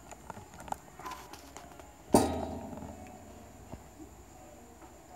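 Faint taps and clicks from handling small parts on a workbench, with one loud knock about two seconds in that rings briefly.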